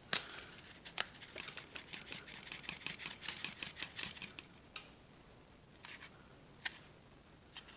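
Light handling noises: two sharp clicks, one at the start and one about a second in, then soft rubbing with small ticks, and a few isolated clicks in the quieter second half.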